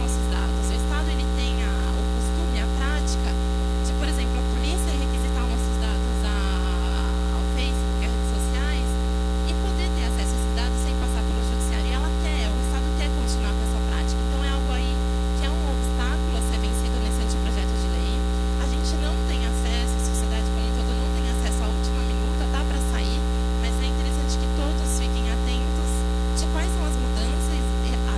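Loud, steady electrical hum with a ladder of overtones. Faint, indistinct voices sit underneath it.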